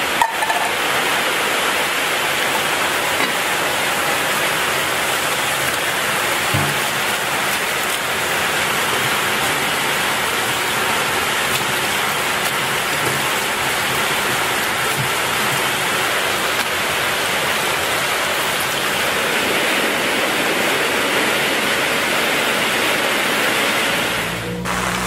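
Kitchen tap running steadily into a stainless-steel sink, the water splashing over bats being rinsed by hand.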